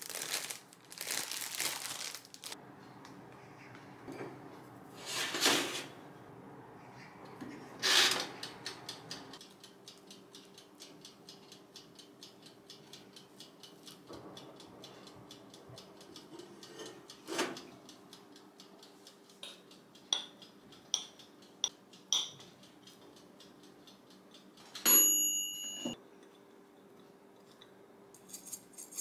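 Kitchen handling sounds: a plastic bag crinkling around frozen bread, a few knocks and scrapes, and a faint steady hum from a countertop toaster oven. Near the end its timer bell rings once and the hum stops.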